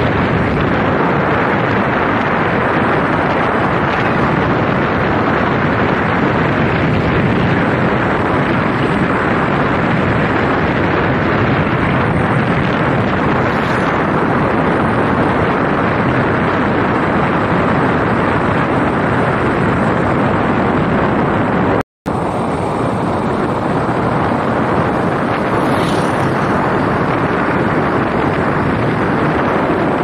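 Steady wind rush on the microphone of a moving vehicle, mixed with road and engine noise, cutting out for an instant about two-thirds of the way through.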